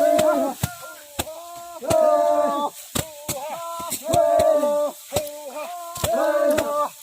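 A song: a voice sings a melody in short held notes over sharp, clicking percussion.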